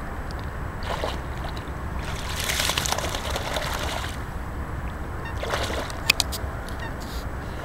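Dog wading in shallow lake water and dipping its head, the water sloshing and splashing in bursts: briefly about a second in, longest from a little past two seconds to four, and again around five and a half seconds. A sharp click about six seconds in is the loudest sound, over a steady low rumble.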